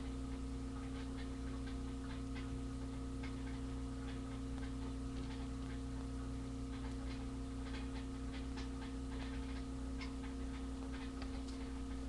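A steady electrical hum with several fixed tones, the strongest a low one, overlaid by irregular faint clicks and crackles.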